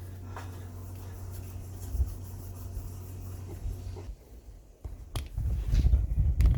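Rubbing and knocking of a hand-held recording device being picked up and handled, over a steady low hum; the handling knocks get louder about five seconds in, with a couple of sharp clicks.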